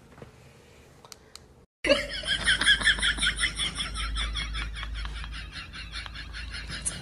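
Rapid, high-pitched laughter that starts abruptly about two seconds in and runs on without a break as a quick string of short pulses.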